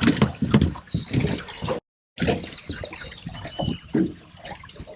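Water splashing and sloshing unevenly as a hooked trout is played close to the boat, with a short complete cut-out about two seconds in.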